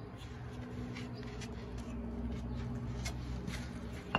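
Concrete pavers being handled and set down on a sand bed, with a few light clicks and one sharp clack near the end, over a steady low hum.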